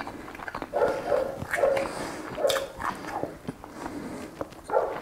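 A dog giving several short barks, spread out about a second apart.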